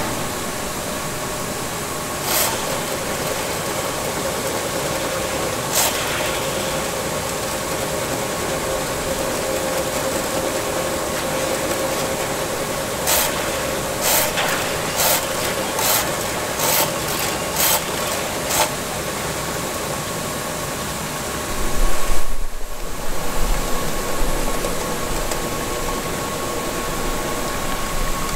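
Electric drum drain-cleaning machine running steadily, its cable spinning in a clogged floor drain, with a steady hum. Sharp clicks from the turning cable come twice early and then in a quick run of about nine partway through, and the sound grows briefly louder and rougher about three quarters of the way in.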